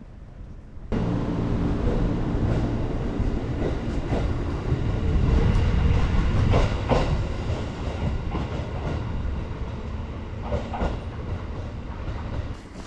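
Train running on rails: a loud, steady low rumble with a steady motor-like hum and scattered clicks and knocks from the wheels. It starts abruptly about a second in.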